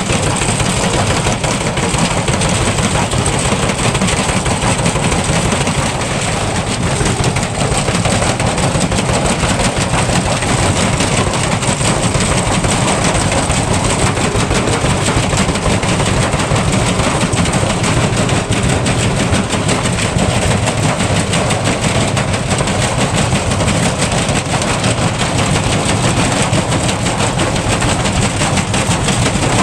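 Electrolux washing machine spinning with a brick in the drum: a loud, steady rumble with very rapid, continuous clattering and banging as the unbalanced drum batters the machine.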